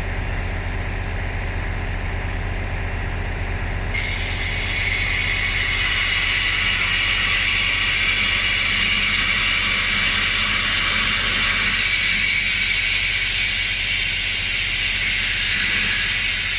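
A steady low hum, then about four seconds in a loud hiss of compressed air starts suddenly and runs on steadily, during work on a punctured bus tyre and its inner tube.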